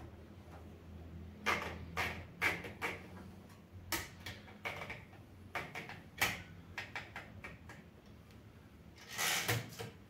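A sheet of paper being loaded into an Olivetti Studio 46 manual typewriter: paper rustling and scattered clicks from the machine's paper-feed parts, with a longer swish near the end.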